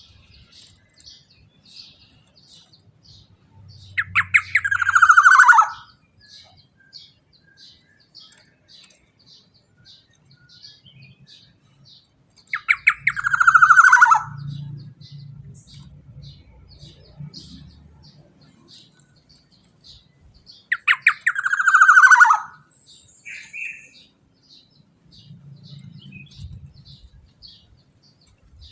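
Black-naped oriole (kepodang emas) calling: three loud harsh calls about eight seconds apart, each opening with a quick rattle and then falling in pitch. A series of short high chirps repeats about twice a second underneath.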